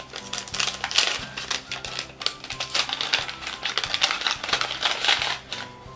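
Kraft-paper wrapping being torn open and unwrapped by hand: a run of irregular crackles and rips.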